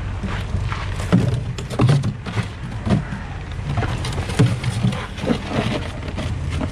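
Steady low rumble of a pickup truck on the move, heard from inside the cab, with irregular short knocks and rattles on top.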